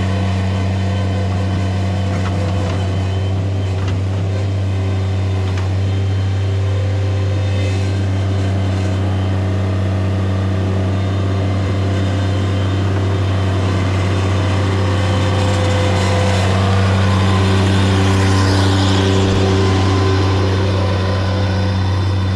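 Engine of earthmoving machinery running steadily at a constant speed, swelling a little about two-thirds of the way through.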